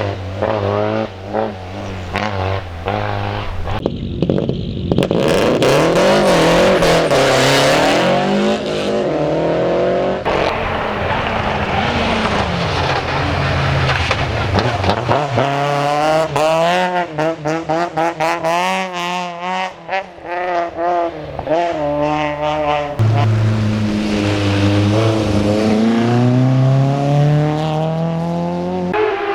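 Race car engines revving hard, the pitch climbing and dropping with gear changes as the cars pass. A stretch of rapid crackling comes about halfway through.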